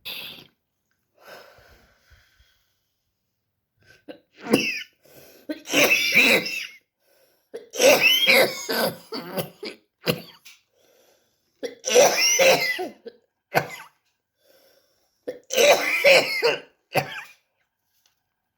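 A young woman coughing in several fits of quick, harsh coughs, with short pauses between; the fits grow louder from about four seconds in.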